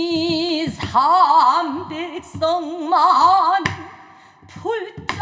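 Pansori singing by a female singer: a long held note with wide vibrato breaks into wavering, ornamented melodic lines, with a short breath pause near the end before the next phrase. A buk barrel drum marks the rhythm with a few sharp strokes.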